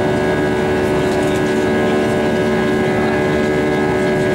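Steady cabin drone of an Airbus A320-232 in flight, heard from a window seat: the hum of its IAE V2500 turbofan engines, with several steady tones, over the rush of air past the fuselage.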